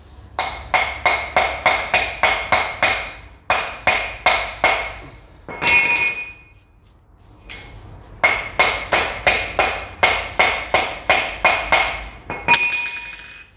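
Hammer blows on metal, about three a second, with a ringing note: the outer CV joint being driven onto the splined end of the driveshaft. Two runs of strikes with a short pause between them, each ending in a harder, longer-ringing blow.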